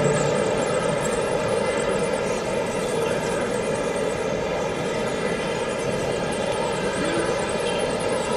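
Radio-controlled construction model's motor running at a steady pitch, a constant whine of several tones over a noisy rumble.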